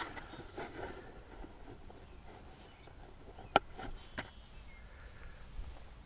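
Quiet outdoor ambience with faint rustling and movement of a person handling gear, and a sharp click about three and a half seconds in, followed by a smaller one half a second later.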